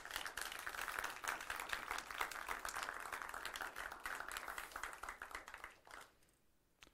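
Audience applauding, a dense patter of many hands clapping that dies away about six seconds in.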